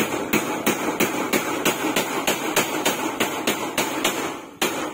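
Hammer blows on corrugated metal roofing sheets, a steady run of sharp strikes about three a second, with a short pause near the end before another blow.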